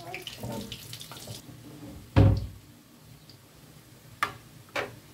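Water pouring for about a second and a half, then a single dull thump about two seconds in and two sharp clinks of crockery near the end.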